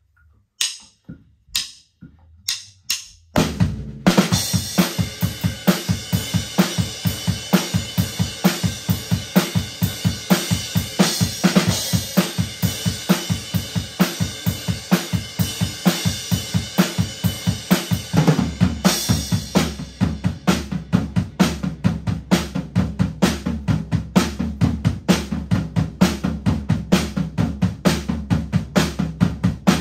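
Acoustic drum kit played with sticks: a few lone hits over the first three seconds, then the full kit comes in with kick, snare and ringing cymbals in a steady beat. About eighteen seconds in the cymbal wash drops back and the groove carries on tighter.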